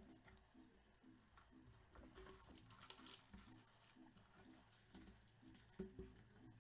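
Faint crackling and crumbling of a lead-acid car battery's cell pack, its corroded lead plates handled and broken apart in gloved hands, with a denser stretch of crackling about two to three seconds in.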